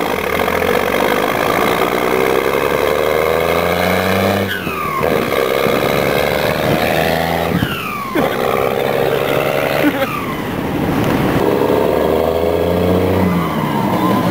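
1991 Dodge Ram's turbocharged 12-valve Cummins inline-six diesel, straight-piped and fueled, accelerating hard through the gears. Its pitch climbs and then drops at each of three upshifts, then climbs again near the end.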